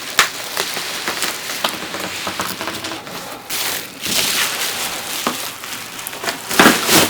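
Cardboard shipping box being handled: crackling rustles and scrapes with scattered sharp clicks, and a louder burst of rustling near the end.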